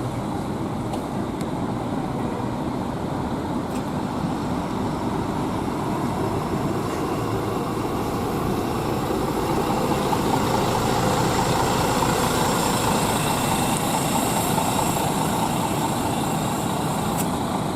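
Large diesel bus engine running steadily, growing louder for several seconds past the middle before easing off.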